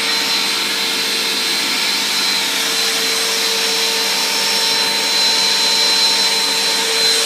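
New small portable vacuum cleaner running steadily with a high whine over rushing air. It is a single-motor vacuum: fan and belt-driven beater bar run off the same motor, so the beater bar keeps spinning in the upright position.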